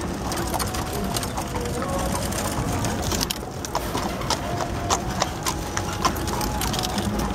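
Horses' hooves clip-clopping on a paved street: the horse pulling the buggy, and a second horse and cart passing close by.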